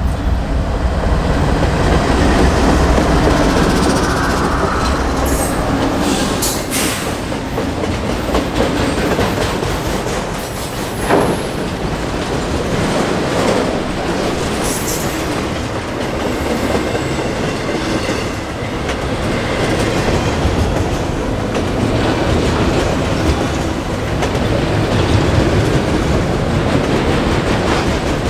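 CSX freight train rolling past on the rails: steady, loud wheel-on-rail noise with a few sharper clicks along the way.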